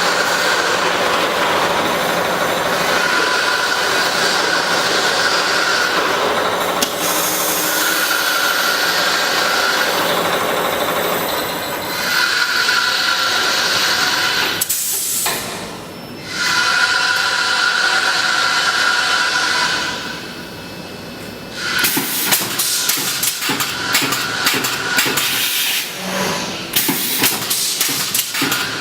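Automatic spiral fan guard looping and welding machine running with a steady mechanical hiss and a whining tone that comes and goes in cycles of a few seconds. The sound drops away twice. In the last third a rapid clatter of clicks and knocks sets in.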